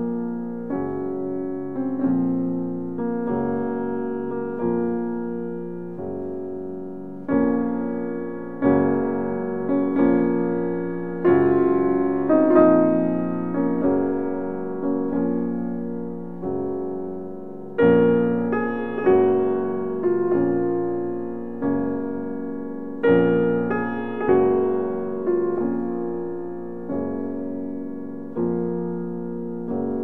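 Background piano music: chords struck about once a second and left to fade, getting louder in two stretches in the middle.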